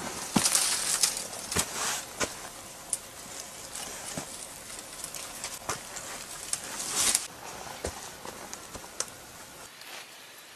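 Rustling of dry leaves and brush with irregular snaps, cracks and knocks of twigs and wooden poles, as a person moves about on leaf litter and handles branches and a pole ladder. There are louder bursts of rustling about half a second in and around seven seconds.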